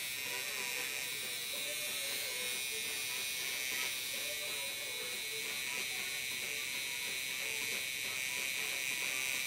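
Coil tattoo machine buzzing steadily as its needle works ink into the skin of a leg.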